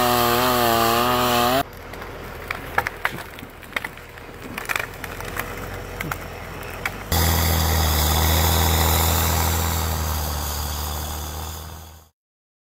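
A chainsaw running at high revs, cut off abruptly about one and a half seconds in; then a quieter stretch of scattered clicks and knocks as a Tucker Sno-Cat's tracks crawl over fallen logs; from about seven seconds a steady low engine drone from the Sno-Cat, fading out near the end.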